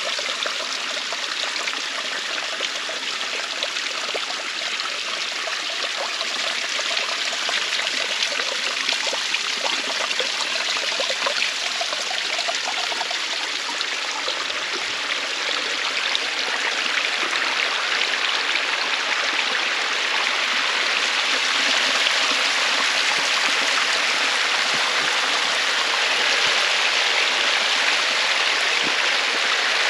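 Running water rushing steadily, a little louder in the last third.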